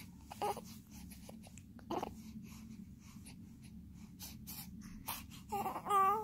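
One-month-old baby hiccuping: two short hiccups about a second and a half apart, with small breathy noises between. Near the end comes a brief, louder pitched vocal sound from the baby.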